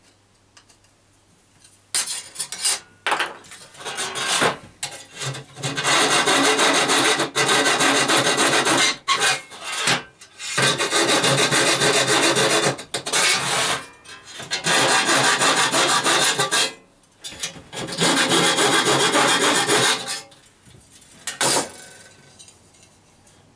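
Hand tool working on the top of a metal R2-D2 dome, cutting around the pie panels, in several runs of a few seconds each with short pauses between. It starts about two seconds in and stops a couple of seconds before the end.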